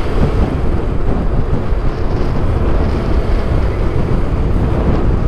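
Motorcycle riding along at speed, heard mainly as a steady rush of wind buffeting the microphone, with engine and road noise underneath.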